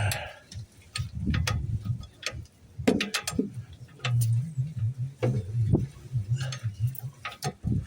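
Wrench and breaker bar working on a seized shock absorber bottom bolt: irregular metallic clicks and knocks of the tools, with a low hum from about four to seven seconds in.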